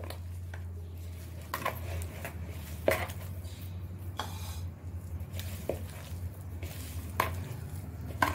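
A hand squishing and kneading mushroom pieces into a stiff flour-and-spice batter in a plastic bowl, with a few sharp clicks scattered through, over a steady low hum.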